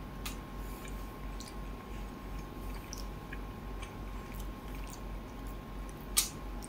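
Close-up eating sounds: a mouthful of rice and fish curry being chewed, with scattered small wet mouth clicks. Near the end a sharper click as fingers work the food on the steel plate.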